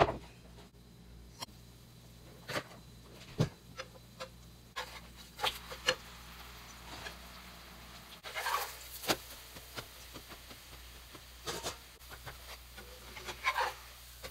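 A potato pancake frying in oil in a nonstick pan, with a sharp knock at the start and further clicks and knocks of a utensil against the pan. A metal turner scrapes along the pan under the pancake twice, about halfway and near the end.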